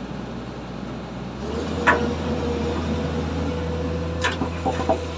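Komatsu excavator's diesel engine running steadily. About a second and a half in, the sound changes and a steady whine joins a deeper hum. A few sharp metallic knocks come near 2 s and again near the end.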